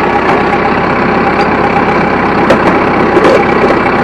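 An engine idling steadily, with a few short clicks and knocks over it.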